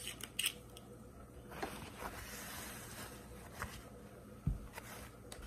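Quiet handling noises of seasoning containers and kitchenware: a few light clicks at the start, a soft hiss lasting about a second and a half, and a dull thump near the end.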